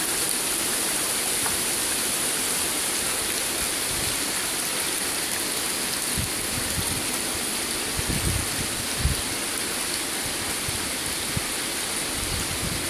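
Water pouring from a pipe outlet into a fish tank, a steady splashing rush. A few soft low bumps come about eight to nine seconds in.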